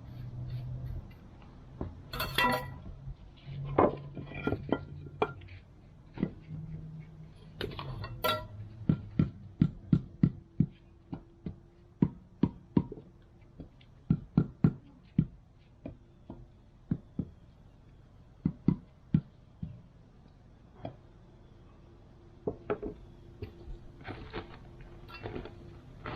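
Masonry hand work setting bluestone stair treads: a run of sharp knocks and taps, about two a second through the middle stretch, with a couple of ringing clinks in the first several seconds.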